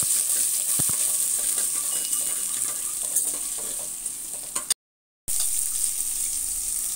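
Chopped onions and mustard seeds sizzling in hot oil in a stainless steel pot, stirred with a steel ladle that clicks against the pot now and then. The sound cuts out for about half a second a little past the middle, then the sizzle resumes.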